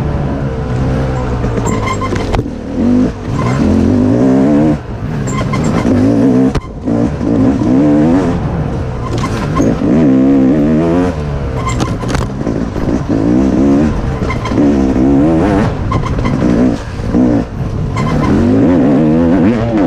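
Dirt bike engine revving up and falling back over and over as the throttle is worked along a trail, its pitch rising and dropping every second or two, with a few brief dips where the throttle is shut off.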